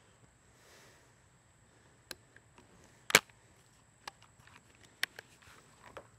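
Savage Model 42 break-action combo gun being loaded and closed: a few small metallic clicks, then the action snapping shut with a sharp click about three seconds in, followed by lighter clicks from the hammer as the gun is readied to fire.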